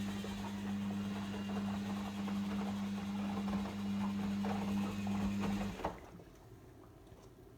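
Logik L712WM23 washing machine's drain pump humming steadily as it pumps out water with a rattling, gurgling sound. It cuts off about six seconds in with a click.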